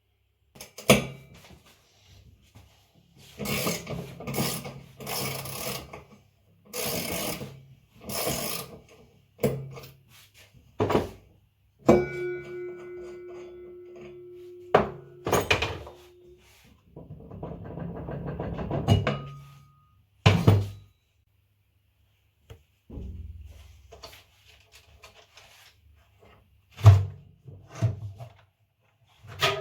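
Scraping and rubbing strokes with several sharp knocks as a Samsung washing machine's tub is worked on during disassembly, with a steady held tone for a few seconds partway through.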